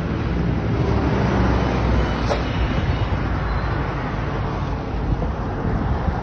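Road traffic noise: a motor vehicle's engine hum in the first second or so, then a steady rumble of traffic, with a brief click about two seconds in.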